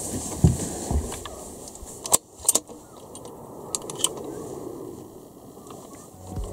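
A few scattered sharp clicks and knocks over a steady low hiss, the sharpest about two seconds in.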